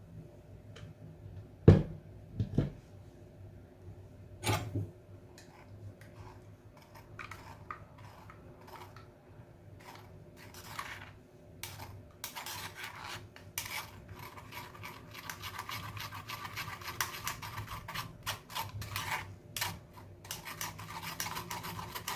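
A few knocks of a bowl and strainer being set down, then continuous scraping and rubbing as blended bitter kola and ginger pulp is worked through a strainer into a bowl to extract the juice.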